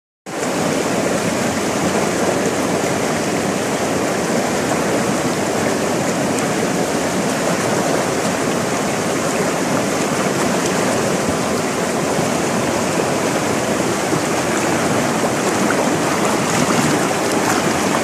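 Small stream rushing and tumbling over rocks: a loud, steady rush of flowing water.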